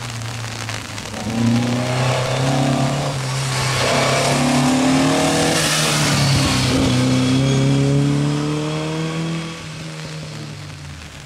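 Historic rally car coming through at speed, its engine revving hard and climbing through the gears, loudest as it passes about halfway through, then fading away.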